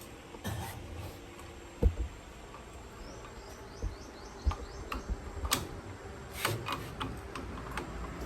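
Scattered clicks and knocks of hand tools and parts being handled on metal, a few of them heavier thuds, with a quick run of small high chirps about three seconds in.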